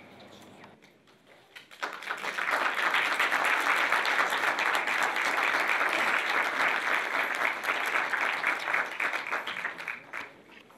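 Audience applauding: a steady clapping that starts about two seconds in and dies away near the end.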